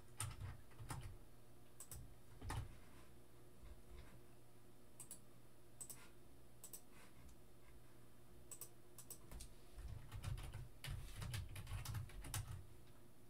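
Faint, scattered clicks of typing on a computer keyboard, with a few dull low thumps at the start and a cluster of them near the end.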